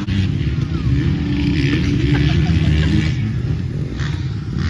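Dirt bike engine running, its pitch rising and falling a little.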